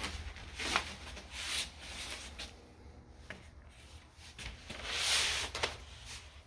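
Treadmill parts and hardware being handled during assembly: irregular rustling and rubbing, with a sharp click just under a second in and a longer swishing scrape about five seconds in.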